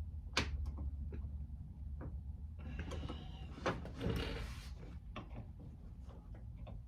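Sheet-metal bottom cover of a heater fan motor being pried and worked loose: scattered light clicks and two short scrapes, over a steady low hum.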